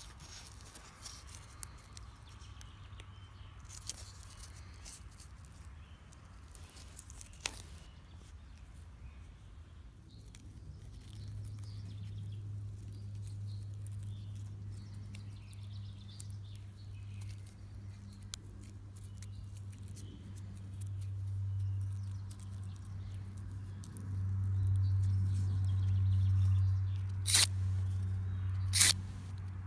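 Thumb striking the spark wheel of an empty disposable lighter, twice near the end with sharp rasping clicks, throwing sparks from its flint onto birch bark tinder. Before that, faint scraping of birch bark being handled, and from about a third of the way in a low steady hum that grows louder.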